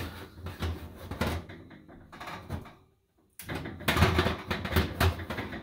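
Metal wire oven rack rattling and clanking against the oven's side supports as it is shifted down a rung, with a quick run of knocks, a brief break about three seconds in, then more clattering.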